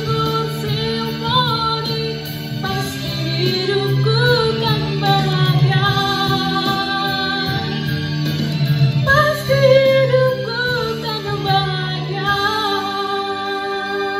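Backing music of a pop ballad with a woman singing over it through a microphone, her voice sliding between notes.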